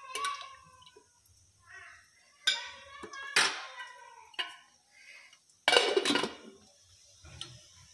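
A steel ladle clinking a few times against a stainless steel pot of sugar syrup, then a steel lid set down on the pot with a louder clatter a little past the middle.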